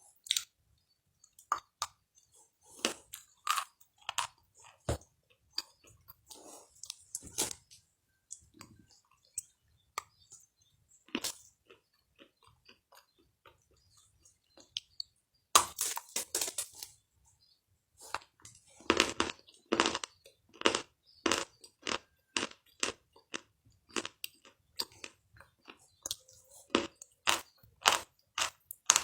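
A person chewing crunchy food, bite after bite of crackling crunches. The crunches are scattered at first, cluster densely about halfway through, then settle into a steady run of about two a second.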